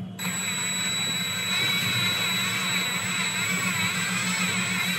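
Cordless drill running steadily with a bent coat-hanger wire as a stirrer, churning a jar of oily, separated almond butter to mix the oil back in. It gets louder just after the start and holds a high, steady whine.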